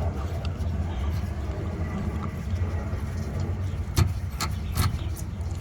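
Steady low hum with a few sharp metallic clicks about four to five seconds in, from a wrench working on the car's new inner tie rod.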